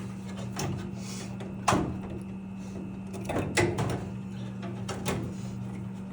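A steady low hum with a few sharp clicks and knocks, as of hardware being handled. The loudest knock is under two seconds in, with a quick cluster in the middle and one more near the end.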